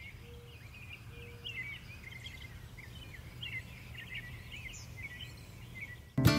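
Many small birds chirping in quick, varied little calls over a faint low steady hum. Guitar music starts abruptly at the very end.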